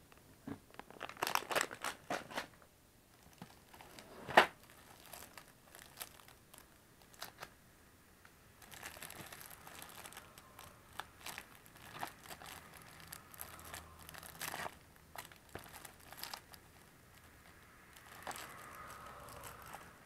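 Plastic snack packaging crinkling and rustling as it is handled, in scattered bursts. A single sharp click about four seconds in is the loudest sound.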